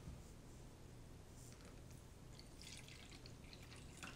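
Vinegar poured in a thin stream from a glass beaker: a faint trickle and drips that start about a second and a half in.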